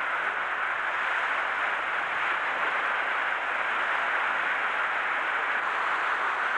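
Steady hiss of surf washing over a shallow sandy beach, even and unbroken.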